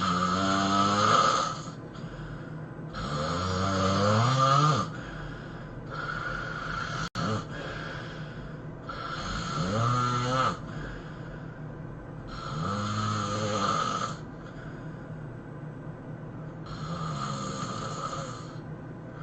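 A man snoring heavily, about six long snores in a slow, regular rhythm roughly every three seconds, each with a rattling, pitched tone that bends up and down.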